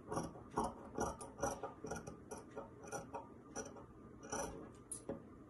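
Scissors snipping through lightweight stretch fabric: a steady run of short, crisp cuts, two to three a second, stopping near the end.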